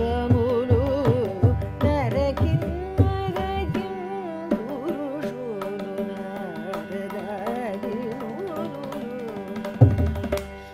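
Carnatic vocal music: a woman sings a gliding, ornamented melody line over a steady drone, accompanied by mridangam strokes. The mridangam stops about four and a half seconds in, leaving the voice alone, and comes back in near the end.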